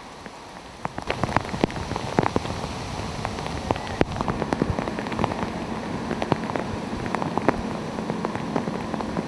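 Hurricane rain falling hard, with many individual drops striking close by; it gets louder about a second in. A faint steady low hum joins midway.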